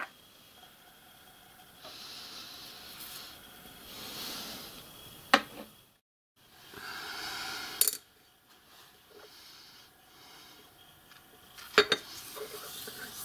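Small metal blocks being handled in a steel machine vise and on the workbench: rubbing and scraping, with a few sharp metal clinks.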